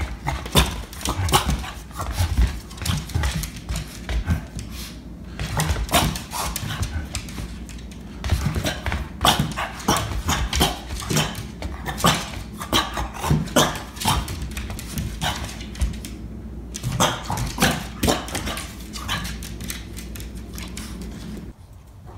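French bulldog barking excitedly in short irregular bursts, with its nails clicking on a hardwood floor. The sound stops abruptly just before the end.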